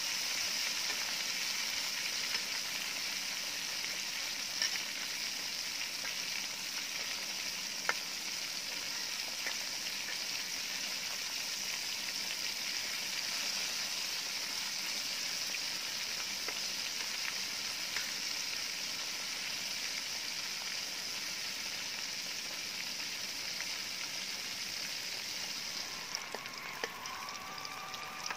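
Fish steaks deep-frying in hot oil in a metal wok, a steady sizzle, with a few light clicks of a metal spatula against the pan.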